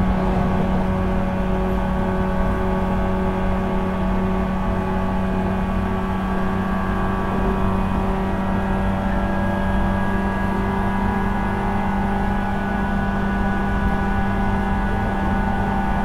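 JNR 475 series express-type EMU running at speed, heard from the vestibule of motor car KuMoHa 475-42: the MT54 traction motors and 19:80 reduction gears whine over a steady low hum and rumble. In the second half the whine rises gently in pitch.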